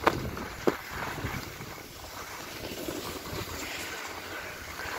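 Wind buffeting the microphone over a snowboard sliding and scraping across packed, tracked snow, with two sharp knocks in the first second.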